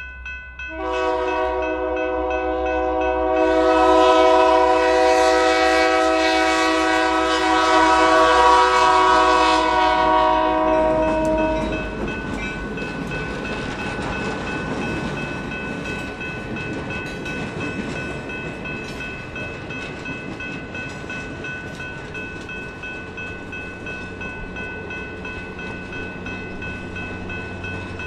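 Lead diesel locomotive's multi-note air horn sounding one long chord for about eleven seconds as the train nears the grade crossing, with a grade-crossing bell ringing steadily throughout. After the horn stops, the passing passenger cars rumble and clatter over the rails.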